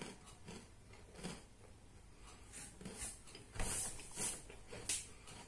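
Cookie being chewed with the mouth closed: scattered soft crunches and mouth clicks, with a louder run of crunches a little past halfway.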